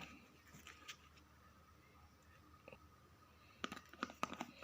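Faint room hum with a few light clicks, then near the end a quick run of sharp clicks and rustles from something being handled.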